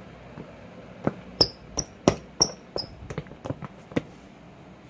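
Rubber soles of Nike Book 1 basketball sneakers stepping and shuffling on a smooth tiled floor: a quick run of about a dozen footfalls starting about a second in and stopping about a second before the end, several with short, high-pitched squeaks.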